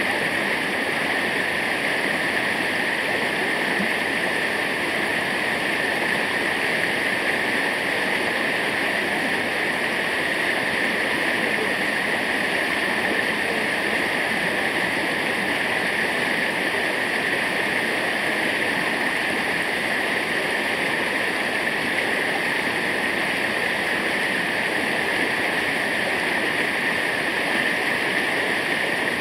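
Waterfall water falling and rushing in a steady, unbroken noise.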